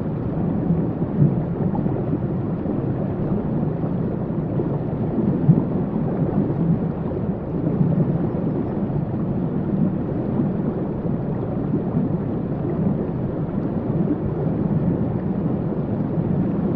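Waterfall's steady rush of falling water, heavy in the low end and muffled, with no hiss in the highs.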